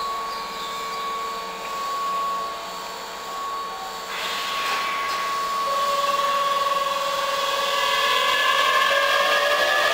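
Keihan 5000 series electric train standing at the platform with its doors closed for departure, its equipment giving a steady high whine. From about six seconds in, a set of rising whines joins and grows louder.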